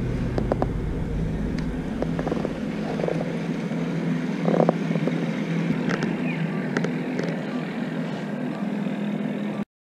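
Steady engine hum of a motorboat on the water, with scattered light clicks; it cuts off suddenly near the end.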